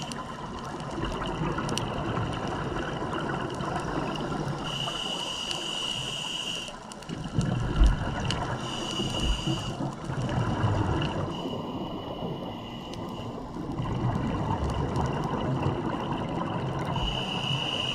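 Scuba diver's regulator breathing heard underwater: a hiss on each breath in, a second or two long and a few seconds apart, with gurgling bubbles of exhaled air between, over a steady underwater wash.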